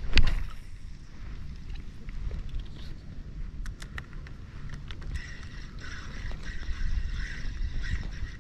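A sudden loud swish at the start as the cast is made, then low wind rumble on the microphone and water lapping. From about five seconds in, the steady whir of a spinning reel being cranked to retrieve a wobbler.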